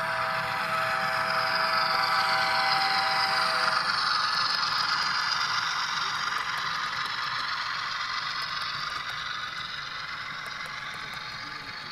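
HO scale model train rolling past close by, its metal wheels rattling and clattering on the track. The noise swells over the first few seconds as the locomotive passes, then slowly fades as the hopper cars follow, with faint repeated ticks in the second half.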